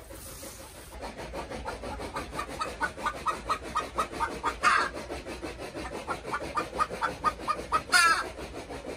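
Desi hen clucking over and over, about three to four short clucks a second, with a louder squawk near the middle and another near the end. She is calling because it is her egg-laying time.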